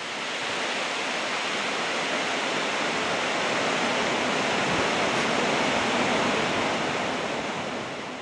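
A tall waterfall plunging into its pool: a steady, even rush of falling water.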